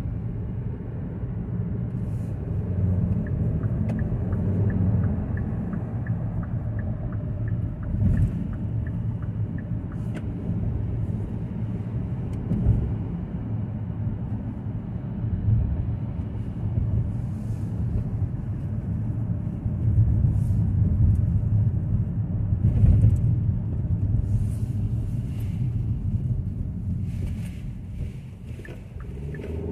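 Steady low rumble of engine and tyre noise heard inside a car cabin while driving, with a few brief louder swells. A faint, regular ticking runs for several seconds a few seconds in.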